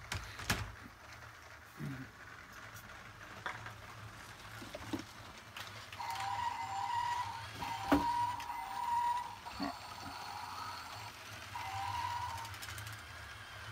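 Battery-powered LEGO toy trains running on plastic track: a low motor hum, with a steady high whine about six seconds in that stops near the tenth second and returns briefly near the end, plus a few sharp clicks.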